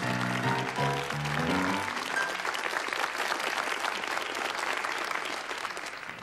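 A musical theme ends with a run of notes about two seconds in. A studio audience applauds after it, and the clapping fades out near the end.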